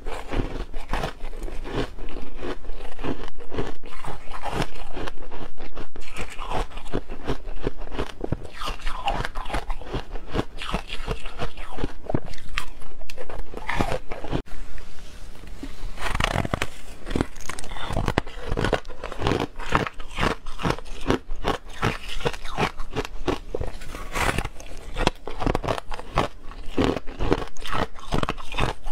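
Soft freezer frost being bitten and chewed close to the microphone: a dense run of crisp, crackly crunches, with a brief lull about halfway through.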